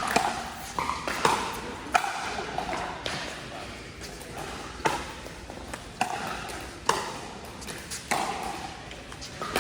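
Pickleball paddles striking a plastic pickleball in a rally: a string of sharp pops roughly a second apart, with a longer gap in the middle.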